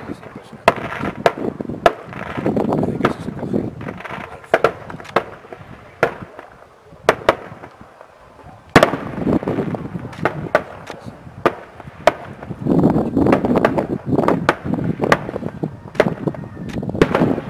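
Fireworks display: many sharp bangs from bursting fireworks at an irregular pace, with noisy stretches between them. The bangs thin out for a couple of seconds midway, then pick up again with a loud bang about nine seconds in.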